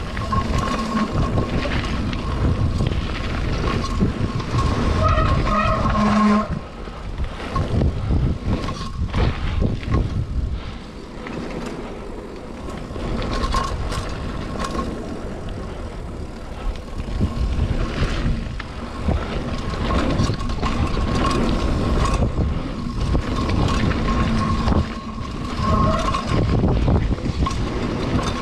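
Mountain bike riding fast down a dirt and gravel trail: tyres rolling over stones and roots, the bike rattling and knocking over bumps, with a steady low rumble of wind on the camera microphone. It runs quieter for a few seconds in the middle.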